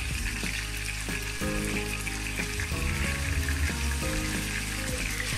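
Marinated chicken pieces sizzling steadily as they shallow-fry in hot oil in a frying pan over medium heat, with background music underneath.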